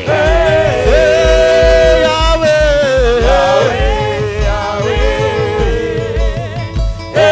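Gospel worship music: voices singing long held, wavering notes over a steady pulsing bass beat.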